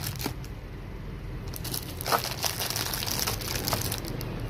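Clear cellophane wrapping crinkling as a hand picks up and handles small keychains sealed in plastic bags, with many small irregular crackles.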